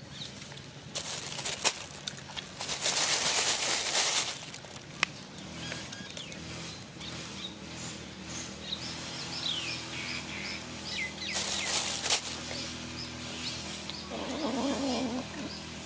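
Cats hissing while squabbling over fish: three bursts of hissing, the loudest about three seconds in and lasting over a second. Short falling bird chirps come in the middle, and a brief wavering animal cry comes near the end.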